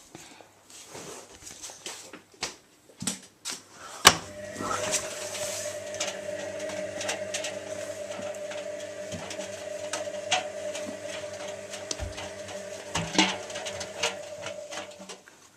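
Zanussi washing machine: a sharp knock about four seconds in, then a steady motor hum with a clear tone that runs until shortly before the end, with scattered clicks and rattles throughout.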